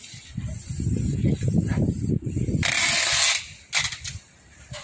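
A long cardboard box scraping and rattling against concrete as it is shifted and lifted, a dense rapid rasp, followed a little later by a brief loud hiss.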